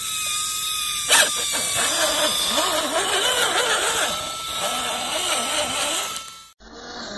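Small electric motor and gearing of an MN86K RC crawler whining under load as it is winched and driven out of mud, with one sharp click about a second in. The whine cuts off suddenly near the end.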